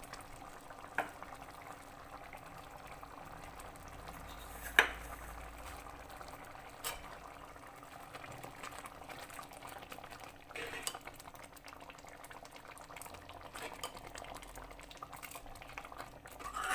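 Black-eyed pea (rongi) curry bubbling in a steel pan, with a few sharp clinks of a metal ladle against the pan, the loudest about five seconds in.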